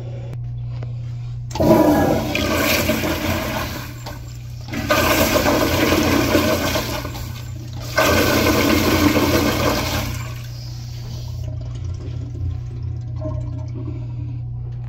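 Commercial flushometer toilet flushing into a 1960s "Standard" Instanto bowl. The valve opens with a sudden loud rush of water that surges for about eight seconds, dipping briefly twice, then eases to a quieter refill flow.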